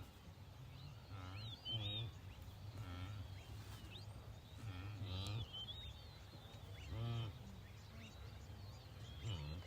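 Repeated short animal calls, each a pitched note that bends up and down, coming about every one to two seconds, with small bird chirps higher above.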